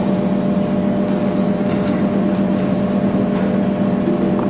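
A steady hum with a constant low drone and a few fixed higher tones, unchanging throughout.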